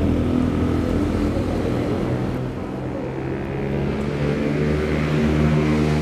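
Motorcycle engines idling, a steady hum that grows stronger about four and a half seconds in.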